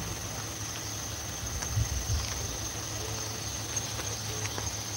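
Insects keeping up a steady, high-pitched drone over a low, steady hum.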